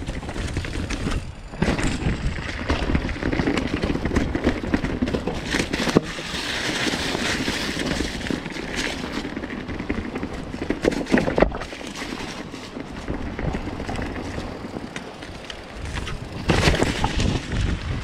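Mountain bike riding down a leaf-covered dirt trail: tyres rolling through dirt and dry leaves with a steady rushing noise, and the bike rattling and knocking over bumps, sharpest about six and eleven seconds in and loudest near the end.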